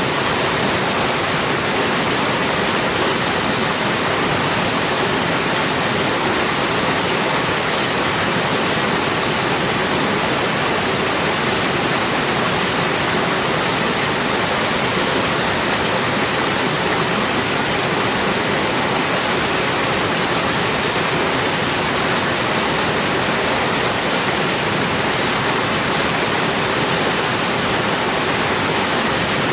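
Heavy rain falling in a steady, even rush.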